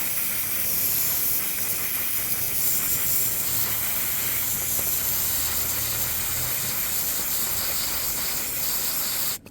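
Spray glue hissing out of its can in one long, steady spray that cuts off suddenly near the end.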